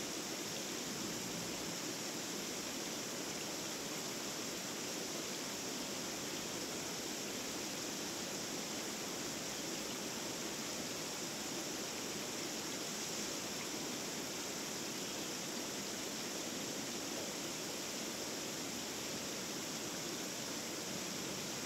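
Shallow water running in a thin sheet over stone paving, a steady, even hiss.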